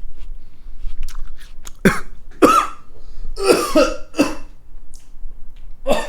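A person coughing and clearing the throat in about five loud, harsh bursts, starting about two seconds in.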